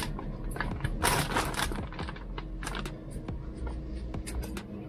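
Light clicks and taps of parts being handled on a shock absorber clamped in a vise, with crinkling of the plastic bag wrapped around it, loudest about a second in.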